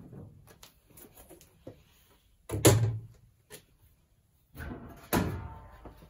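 The removable lid of a Hoover Keymatic 3243H washing machine is pulled free and lifted off. Light knocks and rattles of handling are followed by two loud clunks, about two and a half and five seconds in, the second trailing off in a scraping rattle.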